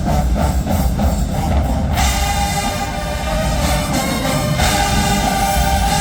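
HBCU-style marching band playing: a drumline beat, joined about two seconds in by the brass section on loud, held chords.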